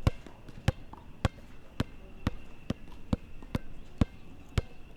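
A basketball being dribbled on a hard court: about ten sharp bounces at an even pace of roughly two a second.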